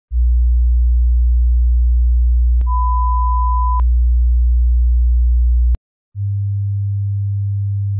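Electronic sine tones. A deep steady hum-like tone stops just before six seconds in, with a higher pure beep laid over it for about a second near the middle. After a brief gap a second deep tone starts, a little higher in pitch.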